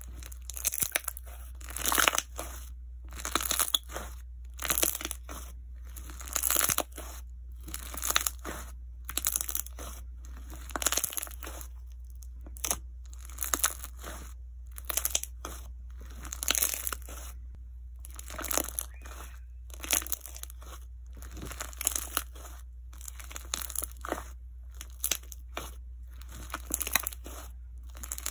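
Clear jiggly slime being squeezed and pressed by hand, giving bursts of wet clicks and pops about once a second as air pockets in it are squashed.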